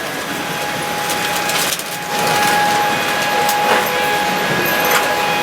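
Aircraft cabin during boarding: a steady rush of air-conditioning with a few knocks and clatter, and a steady whine that starts about two seconds in.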